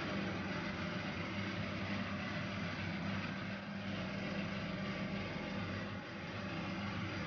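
A steady low machine hum over a constant hiss.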